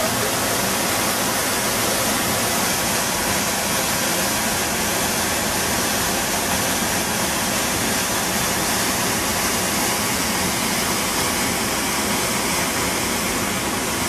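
Waterfall: a steady, unbroken rush of falling water that holds an even level throughout.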